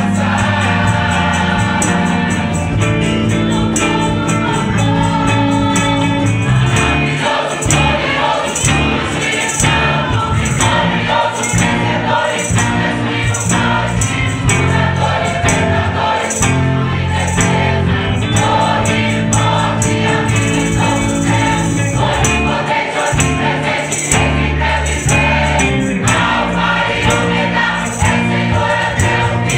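A large youth choir singing a gospel song together, over instrumental accompaniment with steady bass and a regular percussion beat.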